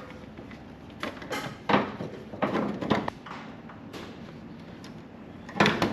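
Scattered knocks and clatter of tools and parts being handled, with the loudest knock near the end.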